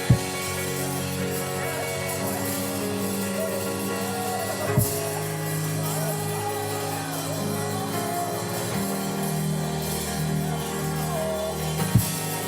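Slow worship band music: sustained chords over a bass line with a soft wordless vocal line wavering above it. Three single drum or cymbal hits fall at the start, near the middle and near the end.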